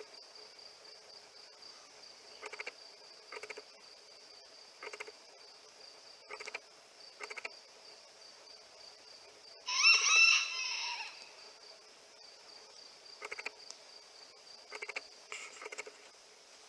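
A steady high insect trill throughout, with faint short sounds recurring every second or so. About ten seconds in, a rooster crows once, loud and just over a second long.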